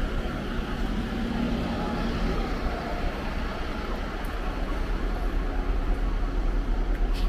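City bus engine running close by, over steady street traffic noise with a low rumble.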